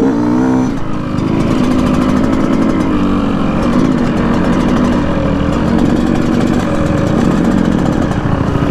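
Dirt bike engine running while riding, revving up over the first second and then holding a fairly steady, wavering note.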